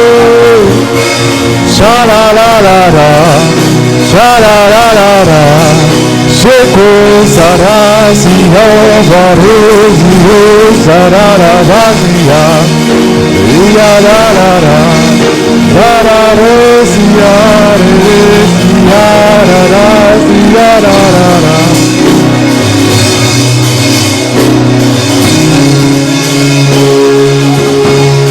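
Live worship band music: sustained keyboard-style chords under a wavering lead melody with heavy vibrato. The lead drops out about three-quarters of the way through, leaving held chords.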